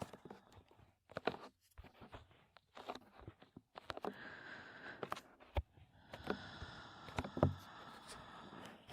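Close-mic heavy breathing, two long breaths, with irregular taps and knocks on the microphone scattered between and over them.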